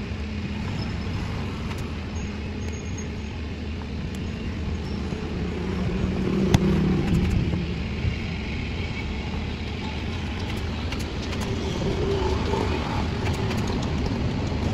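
Steady vehicle noise: a continuous low rumble with road noise, swelling louder with a sharp click about six and a half seconds in.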